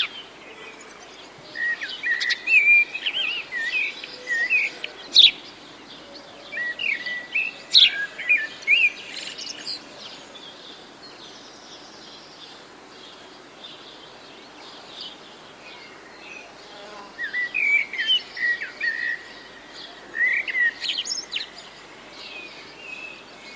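Small birds singing in clusters of quick chirps and trills, busy in the first few seconds and again in the later part, over a steady faint hiss.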